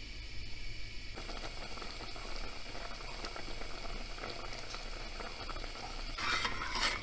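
Rice boiling in water in a stainless steel pot, a steady fine bubbling and popping. About a second in it changes to the thicker bubbling of rice that has cooked down and soaked up most of its water, and it grows briefly louder near the end.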